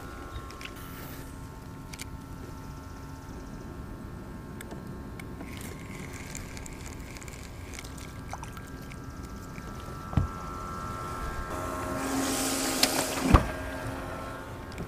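Low, steady hum of a small boat motor that swells louder about twelve seconds in, with two sharp knocks on the aluminium jon boat, one about ten seconds in and one near the end.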